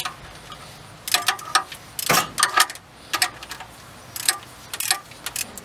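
Socket ratchet clicking in several short bursts while water pump bolts are tightened by hand.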